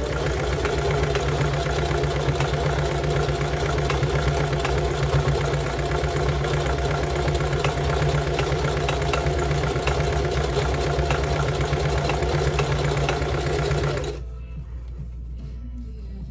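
Singer Heavy Duty sewing machine stitching through climbing rope, running steadily and then stopping near the end.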